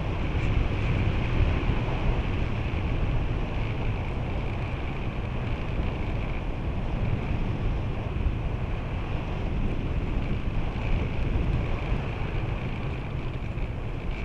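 Steady rush of airflow over a camera mounted on a gliding model glider's fuselage in flight, a constant low buffeting with a steady higher hiss above it.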